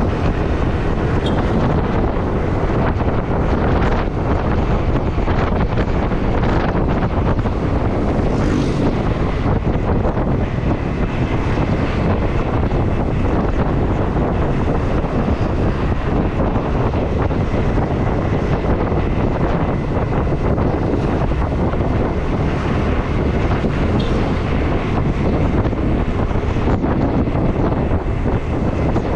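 Wind rushing over the microphone of a moving motorcycle, a loud steady roar with vehicle noise underneath.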